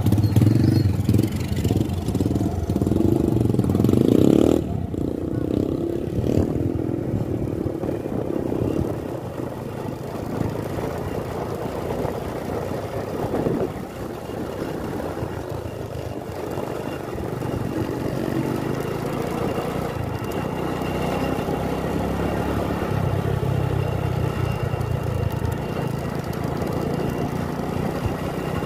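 Engine and road noise of a moving vehicle, recorded on board, running steadily along a highway. A motorcycle passes close in the first few seconds, the loudest part, before the sound settles to a steady hum.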